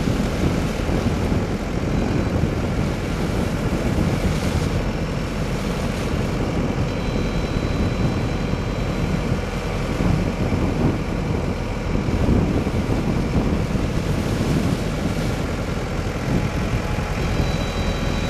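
Diesel engines of an excavator and tractors running steadily, with seed potatoes pouring out of a bulk bag into a potato planter's hopper.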